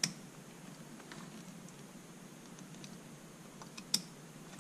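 Faint, sharp metal clicks from a hex driver working the back-plate screws of a stock brushless RC car motor as they are loosened to turn the plate and adjust the mechanical timing. One click comes at the start and another about four seconds in, with a few lighter ticks between.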